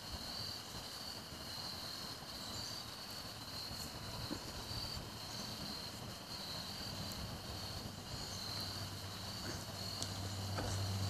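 Insects chirping steadily in a high, pulsing note, with the low hum of an approaching car growing louder over the last few seconds.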